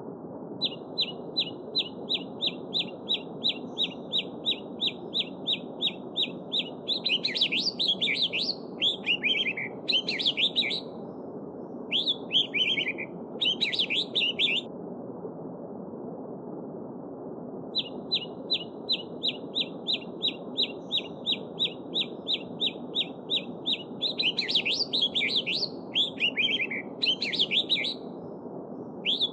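A songbird sings over a steady babbling stream. It gives a long run of identical high notes at about four a second, then a jumble of varied warbling phrases. After a pause of about three seconds, the same song starts again.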